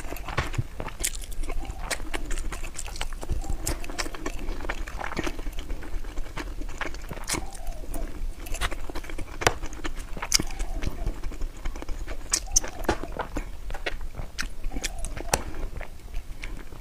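Close-miked eating sounds: a person chewing food, with many irregular mouth clicks.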